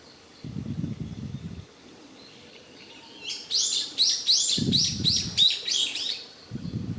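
Japanese paradise flycatcher singing: a quick run of about ten repeated, slurred high whistled notes lasting some three seconds, the rolling "hoi hoi hoi" part of its song. Short bursts of low rumble come and go underneath, about half a second in, around the middle of the song and near the end.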